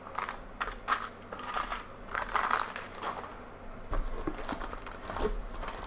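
Foil booster-pack wrapper crinkling and crackling in the hands, in irregular bursts.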